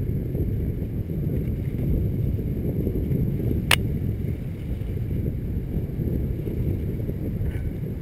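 Steady wind rumble buffeting the microphone of a camera moving fast down a dirt trail, with one sharp click a little under four seconds in.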